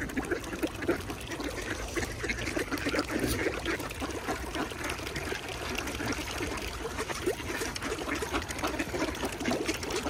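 A large crowd of ducks on the water: continuous dense splashing and dabbling of many birds, with no single call standing out.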